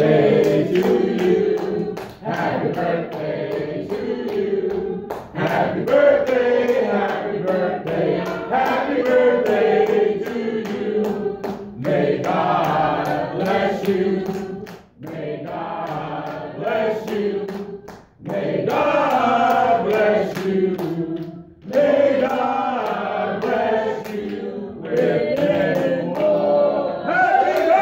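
Church choir singing in several voices, in phrases with brief pauses between them.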